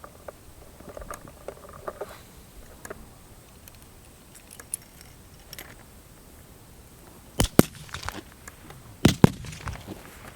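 Scattered light clicks and rattles, then two pairs of loud, sharp cracks, the first about seven and a half seconds in and the second about a second and a half later.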